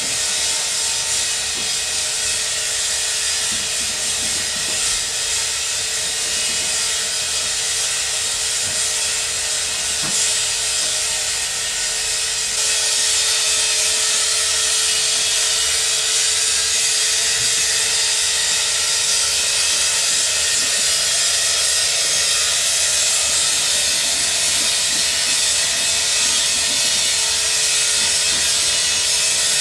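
Dense, hissing harsh noise from a live noise-music improvisation, with a steady mid-pitched tone held beneath it for most of the time. The noise steps up louder and brighter about twelve seconds in.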